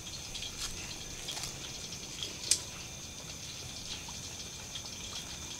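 Pork katsu frying in hot oil: a steady sizzle with small crackles and one sharper pop about two and a half seconds in.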